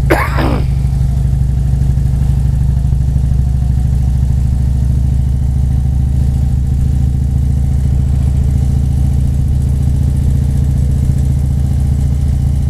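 Harley-Davidson touring motorcycle's V-twin engine running steadily at cruising speed, heard from the rider's seat. A short burst of sound comes right at the start.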